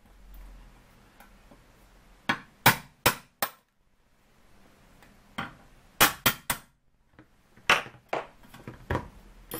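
Small brass-headed hammer tapping a pin punch to knock out the rivets that hold the engine frames to a Mamod SE3 model steam engine's base. About a dozen sharp taps come in short groups, with a pause near the middle.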